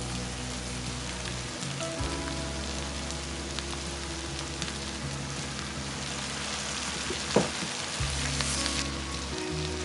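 Food frying in hot oil in a pan, a steady sizzle, with one sharp knock about seven seconds in.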